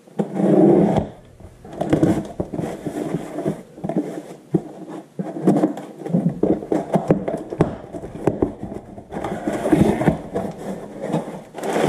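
Cardboard box being opened by hand: a blade scraping along the packing tape, the cardboard flaps pulled back, and crumpled paper stuffing crinkling, in irregular scrapes and crackles with louder bursts near the start and about nine seconds in.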